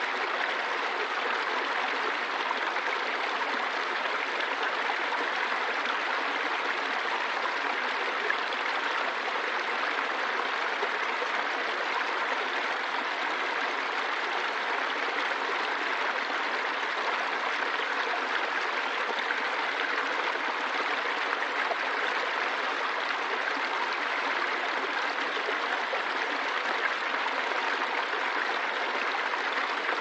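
Small woodland waterfall: a shallow stream spilling over a low rock ledge into a pool, giving a steady, even rush and splash of falling water.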